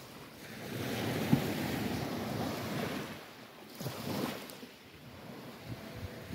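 Small waves breaking and washing on the shore, with wind buffeting the microphone. The wash swells about a second in and again around four seconds, and a single sharp knock is heard about a second in.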